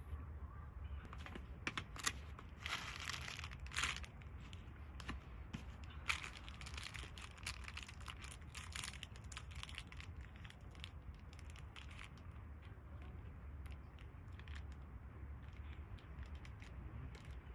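Rustling and crinkling handling noise with scattered clicks, denser in patches, over a steady low hum.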